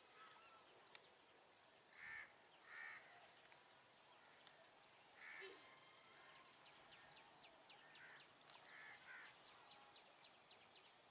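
Quiet outdoor ambience with a crow cawing faintly, about six short caws spread through, some in close pairs. Faint quick clicking in the second half.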